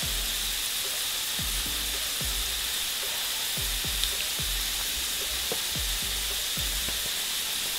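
Chicken livers frying in oil in a pan, a steady sizzle as spoonfuls of apple juice are added.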